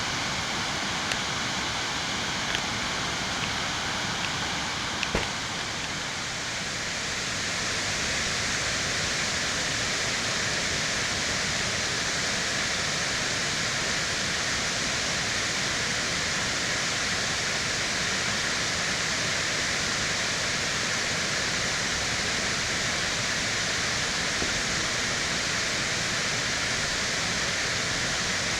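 Steady rushing of falling water at a mountain waterfall, swelling slightly about seven seconds in. A few faint clicks sound over it in the first five seconds.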